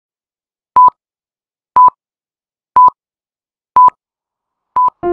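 Countdown-leader beeps: five short 1 kHz tones, one a second, marking the count from five down to one, the last beep shorter than the others.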